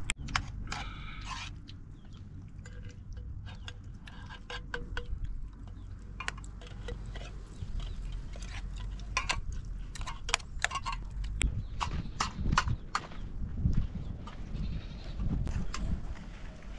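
Flock of goats and sheep bleating now and then, with many scattered clicks and knocks over a low rumble.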